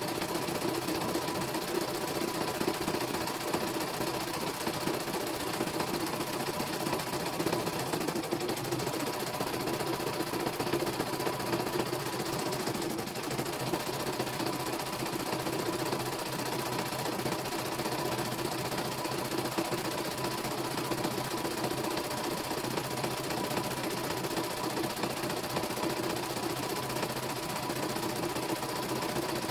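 CNY E900 computerized embroidery machine stitching a design: steady, continuous needle stitching as the embroidery hoop is moved under the needle.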